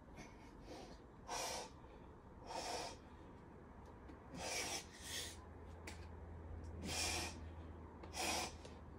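A boulderer's short, forceful breaths through pursed lips while climbing an overhang: about six sharp exhalations a second or so apart, one with each hard move.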